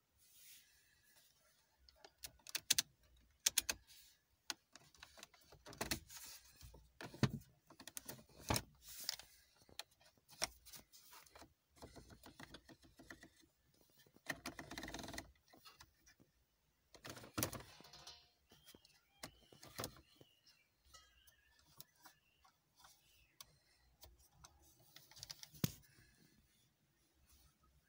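Plastic clicks and sliding scrapes of a 1998 Toyota RAV4's dashboard heater-control sliders and switches being worked by hand: many scattered sharp clicks, with two longer scrapes around the middle.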